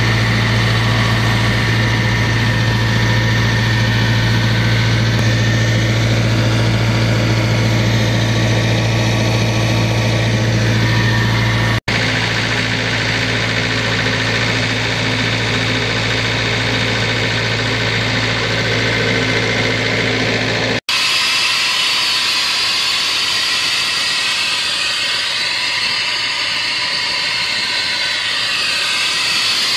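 Doosan D24NAP four-cylinder diesel engine of a towable Doosan P185 air compressor running steadily at idle, a deep even drone. The sound cuts out briefly twice, about twelve and twenty-one seconds in; after the second cut the low drone fades and a steady rushing hiss takes over.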